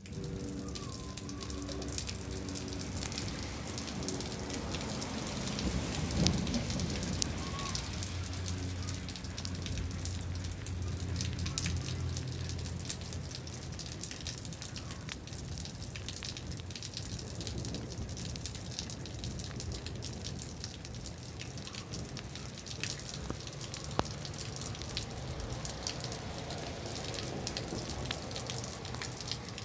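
Steady rain falling on a concrete patio and gravel: an even hiss with many single drops ticking, over a low steady hum.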